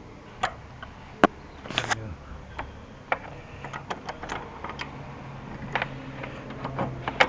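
Irregular light clicks and taps of hand work on car parts, a dozen or so scattered through, over a faint steady low hum.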